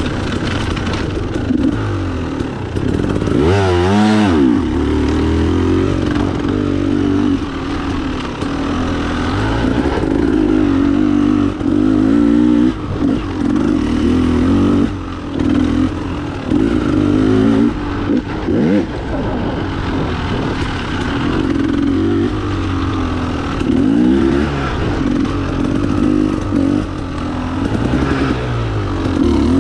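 Off-road enduro motorcycle engine under way on a trail, its pitch rising and falling constantly with throttle and gear changes. There is a sharp rev up and back down about four seconds in, and short dips where the throttle is shut off now and then.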